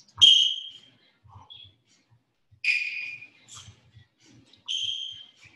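Sneakers squeaking on a hardwood floor three times, about two seconds apart, as the rear foot pivots on each cross during shadow boxing, with faint footfalls in between.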